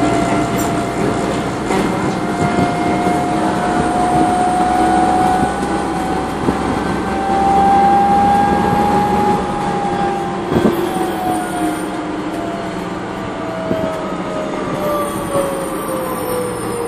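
City transit bus with its original Voith automatic transmission, heard from inside the cabin: a transmission whine rises slowly in pitch to a peak about halfway through, then falls steadily as the bus slows, over engine and road noise. A single knock sounds a little past halfway.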